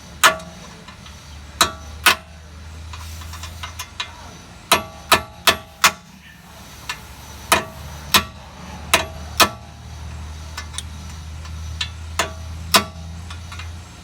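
A hammer striking a socket used as a drift, driving a stuck bolt out of the front suspension: about a dozen sharp, ringing metal blows in uneven clusters, with pauses between groups.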